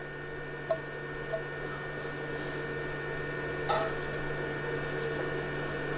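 Steady electrical hum with a few faint, light clicks and taps.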